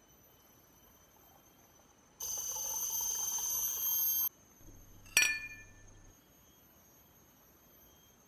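Water poured from a plastic bottle into a glass for about two seconds, growing a little louder as the glass fills, followed about a second later by a single sharp clink of glass that rings briefly.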